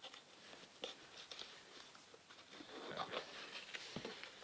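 Faint handling sounds of a smartphone box being opened: light taps and clicks with a soft rustle of packaging about three seconds in.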